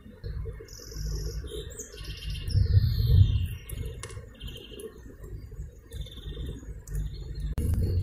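Garden songbirds calling in short high chirps, with one longer falling note about two and a half seconds in, over a steady low rumble.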